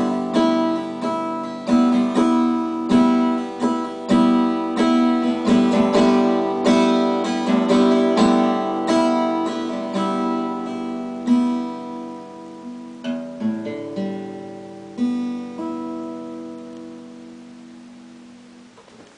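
Acoustic guitar strummed in a steady rhythm, slowing near the end to a few last chords; the final chord rings out and fades away.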